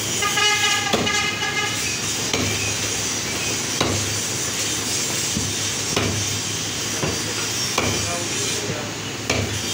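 Meat cleaver chopping through a rack of mutton ribs on a wooden chopping block: sharp chops about once a second or a little slower. A steady pitched tone, like a horn, sounds over the first two seconds.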